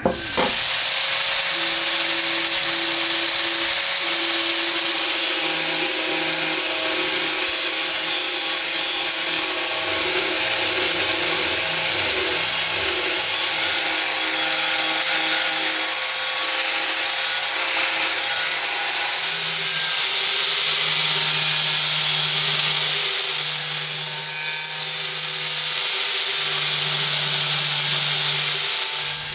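Angle grinder running with its abrasive disc pressed against a rusty steel kitchen knife blade, grinding off the rust: a steady motor whine under a harsh, even grinding hiss. It starts about half a second in.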